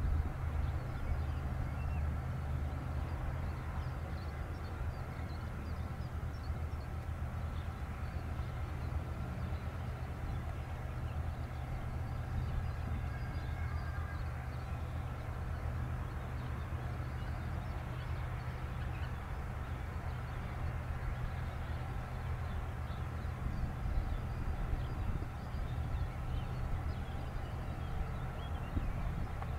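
Steady low outdoor rumble, without clear events.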